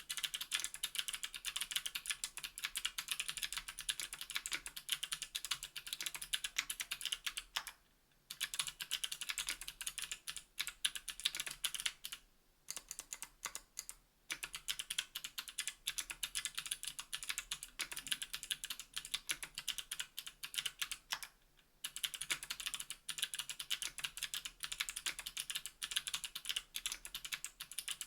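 Fast, continuous typing on a KBDfans Tofu 60% aluminium-case mechanical keyboard with NK_ Sherbet clickbar switches and GMK keycaps: a dense stream of crisp keystroke clicks, broken by a few brief pauses.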